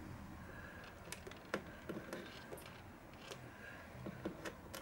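Faint, irregular clicks and scrapes of a small ceramic capacitor's wire leads being pushed into the contact holes of a solderless breadboard by hand.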